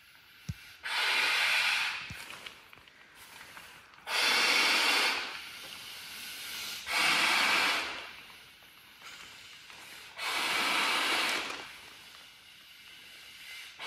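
A person breathing heavily close to the microphone: a hissing breath about every three seconds, four times over, with a light knock about half a second in.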